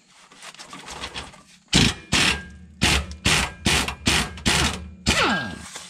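Air impact wrench hammering on a rear lower shock mount bolt in short trigger bursts, about eight of them. Near the end it runs free with a falling whine as it spins down, the bolt having broken loose.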